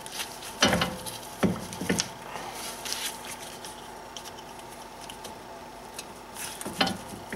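Brake caliper slider pins being handled and slid into place, metal clicking and knocking: a few sharp knocks in the first two seconds, light ticking, then more clicks near the end.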